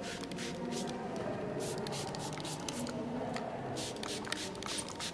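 Paintbrush strokes on watercolour paper: a series of short, soft swishes and scratches, bunched about one and a half to two and a half seconds in and again near the end.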